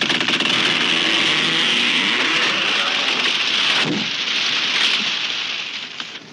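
Falling tree crashing down: a long rush of branches and leaves thrashing through, with a heavy thud about four seconds in, then the rustling dies away near the end.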